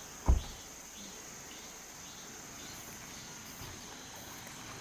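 Insects chirring in one steady high-pitched tone, with a single sharp low thump about a third of a second in.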